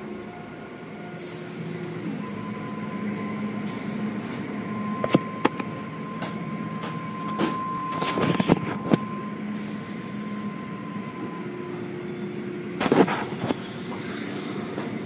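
Automatic car wash tunnel machinery running with a steady hum and a thin steady whine. Several sharp knocks and thuds come through it, a cluster about eight seconds in and another near the end.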